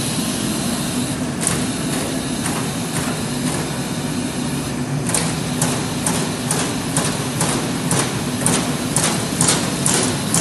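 Trumpf Trumatic 160R CNC turret punch press punching sheet metal: sharp punch strokes over the machine's steady hum. The strokes come a few at a time at first, then settle into a regular run of about two a second from about halfway through.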